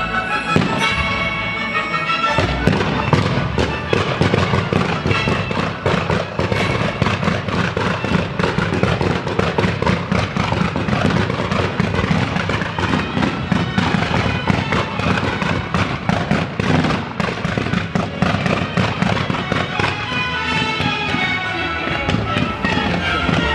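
A fireworks display synchronised to music: a dense, continuous barrage of bangs and crackling bursts over loud music. The barrage thickens about two seconds in and thins near the end, leaving the music clearer.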